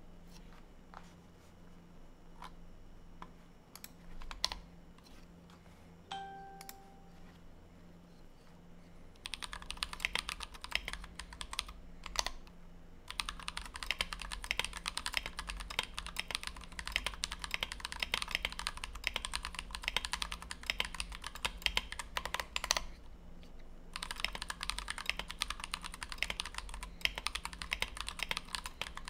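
Typing on a Tofu 60 mechanical keyboard with a brass plate, lubed and filmed Everglide Dark Jade tactile switches and PBT OEM keycaps. Only a few scattered keystrokes sound for about the first nine seconds, then fast continuous typing runs with two short pauses. A brief tone sounds about six seconds in.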